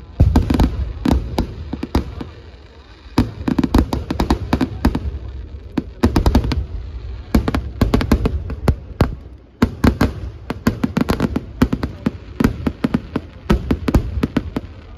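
Festival fireworks barrage: aerial shells and crackers going off in rapid, irregular bangs, dozens in quick succession, with brief lulls about two seconds in and again near the middle.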